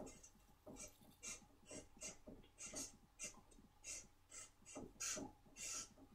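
Felt-tip marker writing a word on a flip-chart pad: faint, short scratching strokes, irregular, about two or three a second.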